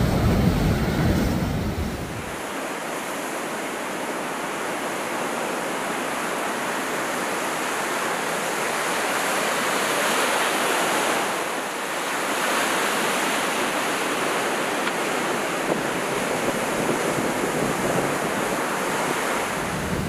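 Heavy sea swell breaking over shore rocks: a continuous rush of surf that swells and eases. A deep low rumble in the first two seconds drops away about two seconds in.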